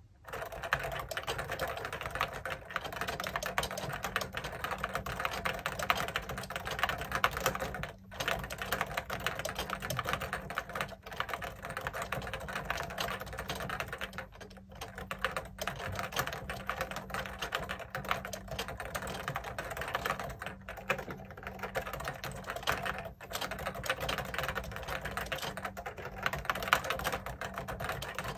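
Steady typing on a JUKI Celavi FK212-JS keyboard's Topre Hipro switches with 25 g domes, its feet extended, picked up by an iPhone microphone. A fast run of key clacks with a few brief pauses.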